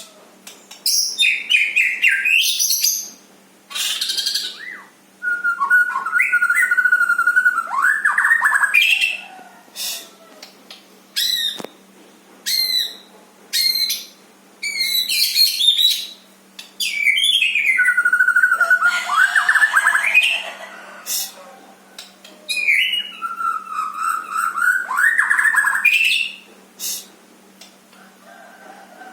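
A bird singing loud, varied phrases of rising and falling whistles and warbles, each a few seconds long, with short sharp chirps in between.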